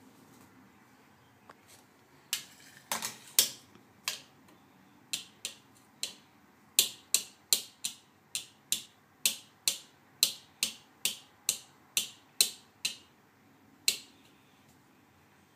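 Makeup brush tapped by a toddler against a hard plastic makeup palette: sharp clicks, a few scattered ones at first, then a fairly steady run of about two or three a second for several seconds, ending with one last tap.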